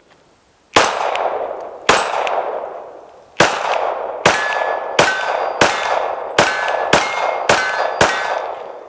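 B&T MK II 9mm pistol fired about ten times: two slower shots, then a quicker string about two shots a second, each echoing off the range. From the middle on, a short metallic ring follows each shot.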